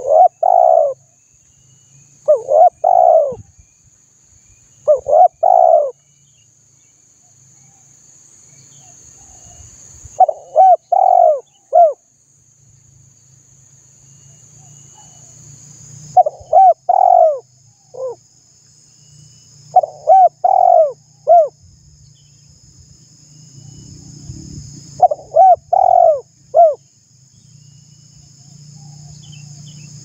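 Spotted dove cooing: seven short phrases of three or four coos each, repeated every few seconds with gaps between.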